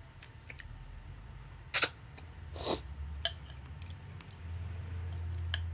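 Close-up eating sounds of ramen noodles: two short slurps, one about two seconds in and a longer one just after, with scattered small clicks and mouth smacks over a low steady hum.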